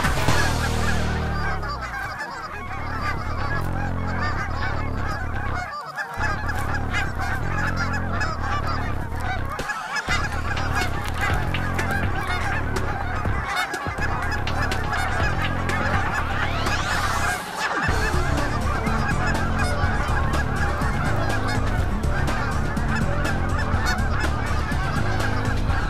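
A large flock of Canada geese honking overhead, many birds calling at once in a dense, continuous chorus.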